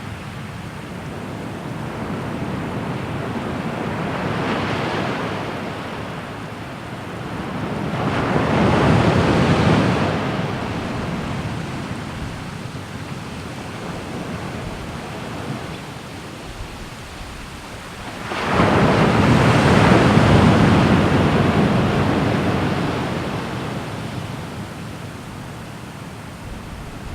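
Ocean waves breaking on a shore: a rushing surge that swells and recedes, with three big breakers, the loudest coming in suddenly a little past the middle and fading away slowly.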